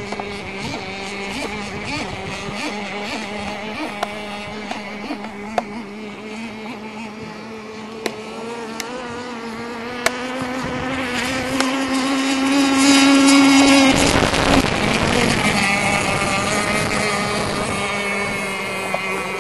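Radio-controlled racing boat's motor running flat out with a high steady whine. It grows louder and climbs in pitch as the boat approaches, then drops in pitch about fourteen seconds in as it passes close by.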